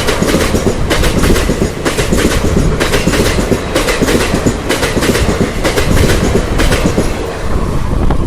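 Express passenger train running through a station at full speed: a heavy rumble of the coaches with a rapid clickety-clack of wheels over rail joints, coming in irregular groups of sharp clicks.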